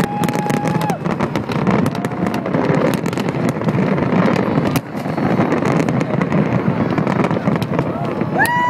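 Fireworks finale: many shells bursting in rapid succession, sharp bangs over a dense crackle. A steady horn tone sounds for the first second, and boat horns start up near the end as the bursts die away.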